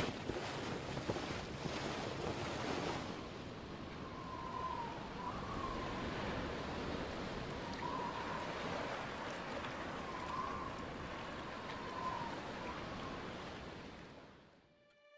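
Sea waves and wind rushing past a sailing ship under way, a steady wash with faint wavering tones now and then in the middle, fading out near the end.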